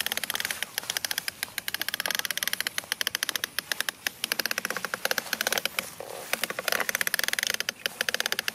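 Plastic toy dump truck rattling as it is towed by a string over grass: an even, fast clicking of about ten clicks a second from its plastic wheels and body.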